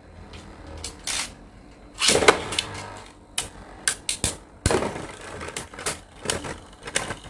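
Beyblade spinning tops whirring and scraping in a clear plastic stadium. About two seconds in a second top is launched with a brief burst of noise, and from then on the two tops collide in a quick run of sharp clicks and knocks.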